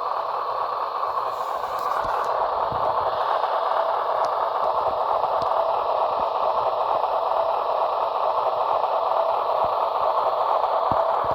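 Sound decoder of an HO scale Union Pacific Dash 9 model locomotive playing a steady diesel engine rumble through its small onboard speaker, thin and mid-pitched without real bass.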